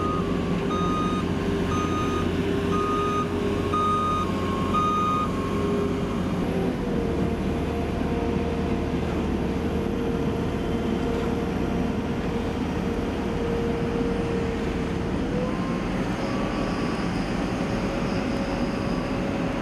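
Backhoe loader's engine running with its reversing alarm beeping about once a second. The beeping stops about five seconds in while the engine keeps running and steps up in pitch twice, and the beeping starts again near the end.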